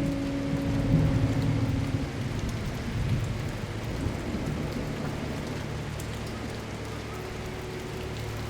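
Steady rain falling, with thunder rumbling low and heavy through the first few seconds before easing off. A few faint held electric-piano notes sound under the rain.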